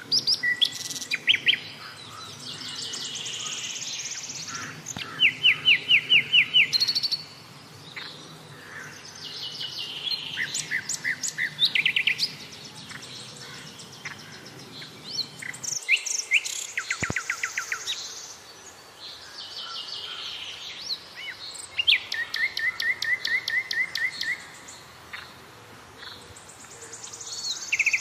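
Several birds singing and calling, with varied chirps and fast trills of rapidly repeated notes that come back every few seconds.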